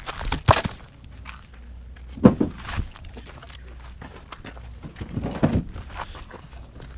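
Footsteps on dirt and forest litter while firewood is carried, with three loud thuds and crunches: about half a second in, a little over two seconds in, and about five and a half seconds in.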